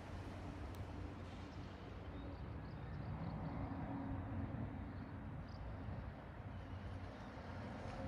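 Steady low outdoor rumble with a faint hum and no distinct events.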